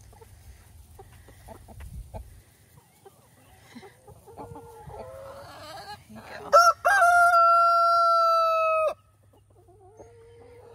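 A flock of chickens clucking softly, then a rooster crowing once, loud and long, about six and a half seconds in, the crow held on one pitch and cut off sharply.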